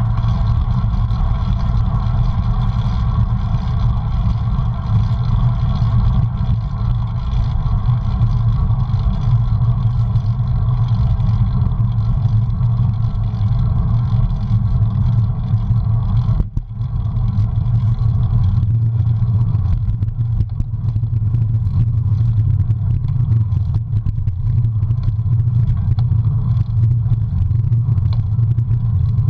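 Wind buffeting the microphone of a bicycle-mounted camera while riding, a steady loud low rumble that briefly drops a little past halfway.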